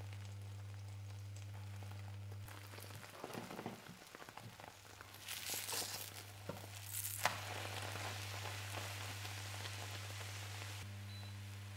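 Beaten egg sizzling in a nonstick frying pan, with a few scrapes and taps of a spatula as the thin omelette is loosened and turned over; the sizzling swells past the middle, with a sharp tap near its end. A steady low electrical hum runs underneath.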